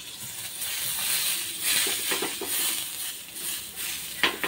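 Butter sizzling as it melts and foams in a hot pan while a spatula spreads it around, with a sharp tap against the pan about four seconds in.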